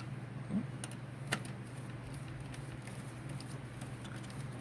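A few light clicks and taps, two sharp ones about a second in, from motherboard mounting screws and nuts being fitted into a computer case, over a steady low hum.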